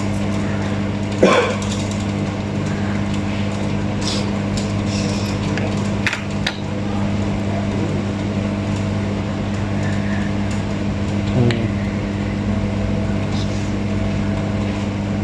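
Hot-air rework station running, its blower giving a steady hum and hiss while hot air is played around a part on a circuit board. A few short knocks or clicks come about a second in, around six seconds in and near eleven seconds in.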